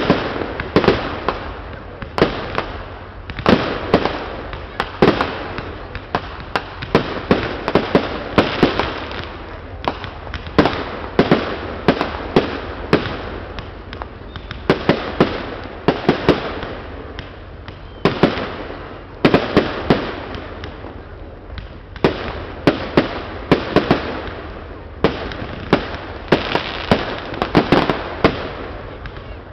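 Aerial firework shells bursting in quick succession at a big fireworks display: a continuous barrage of sharp bangs, each with an echoing tail, with a couple of short lulls.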